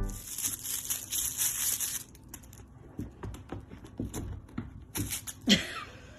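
Soft taps, scuffles and crinkling as a cat bats a foil gift bow across a rug, after a rustling hiss in the first two seconds; a short falling squeak comes near the end.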